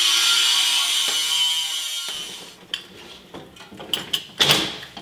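A power tool grinding metal, a steady high whine that stops abruptly about two seconds in. After it come scattered sharp metal clicks and knocks as a stainless chimney pipe and its steel mounting bracket are handled and fitted together, the loudest near the end.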